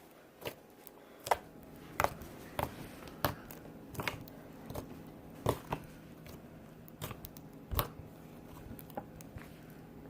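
Slime being pressed and stretched by hand, giving irregular sharp pops and clicks, about one or two a second, that thin out near the end.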